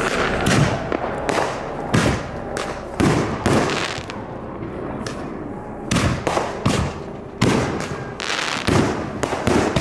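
Aerial fireworks going off in an uneven string of loud bangs, roughly one a second, with a short lull about four seconds in before the bangs resume.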